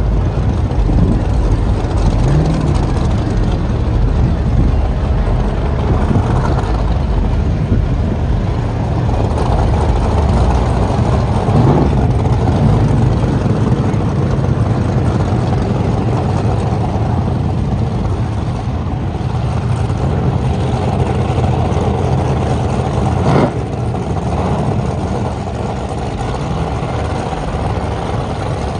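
Large engines running with a steady, deep rumble. About 23 seconds in there is one sharp knock.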